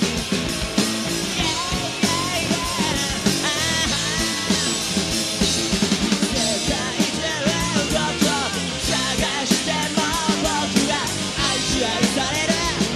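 Loud rock song played by a full band, with a driving drum kit and a wavering lead melody line over it.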